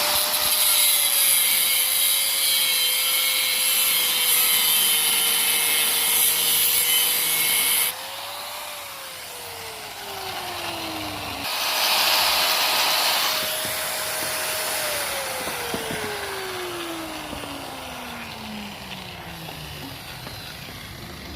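Handheld electric grinder cutting the steel shell of a fridge compressor along its weld seam: the motor runs with a loud grating cut for about eight seconds, then is released and winds down. About twelve seconds in it is triggered again for a short cut, then spins down slowly.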